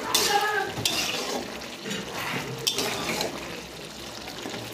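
A metal spatula stirs and scrapes through thick potato curry in a black wok, knocking against the pan now and then.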